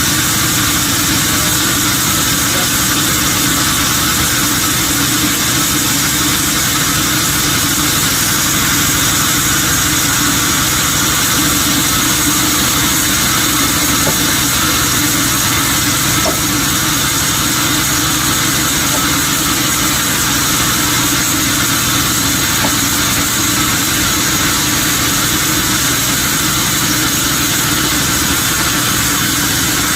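Sawmill machinery running steadily: a loud, constant engine-and-machine drone that holds one level throughout.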